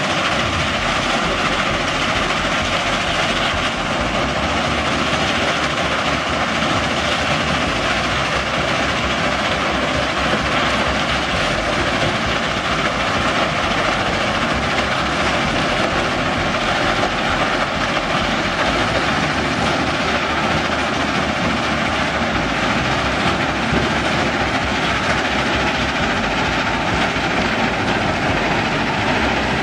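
Steady, unbroken noise of a stone crushing and screening plant running: crushers, vibrating screens and conveyor belts working andesite, with a faint hum under the rumble.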